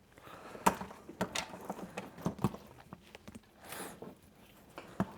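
Irregular light clicks and knocks of hands handling electrical wires and tools, with a brief rustle about three and a half seconds in.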